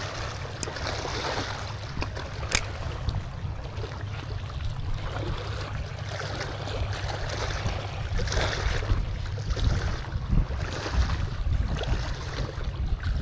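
Wind rumbling on the microphone over water washing against shoreline rocks, with a few light clicks.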